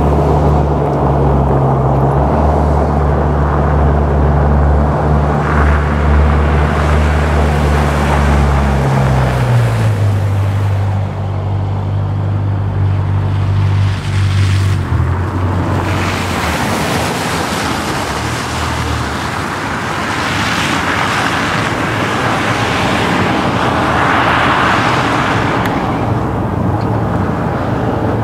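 A vehicle engine running with a steady low hum that drops in pitch about ten seconds in and fades out around sixteen seconds, over a constant rush of wind and road noise that swells again near the end.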